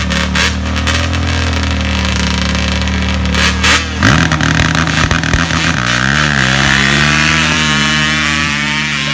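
Racing ATV engines running at high revs, held steady at first; about four seconds in the pitch jumps and then rises and falls repeatedly as the engines rev.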